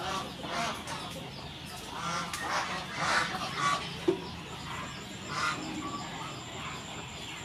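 Domestic poultry calling in short repeated honks and clucks, about six calls. One brief sharp tap about four seconds in.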